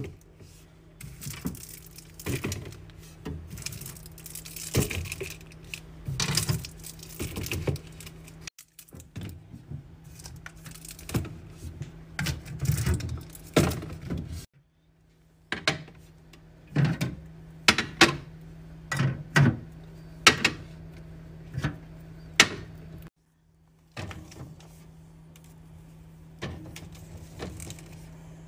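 Containers, jars and bottles being handled and set down while a fridge is stocked and organized: irregular clacks, knocks and clinks with a steady low hum underneath. The sound breaks off abruptly into silence three times.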